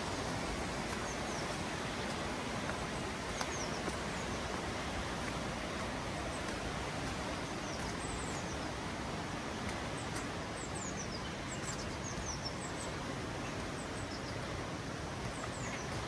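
Small birds calling with short, high, falling chirps, scattered and more frequent in the second half, over a steady rushing outdoor noise.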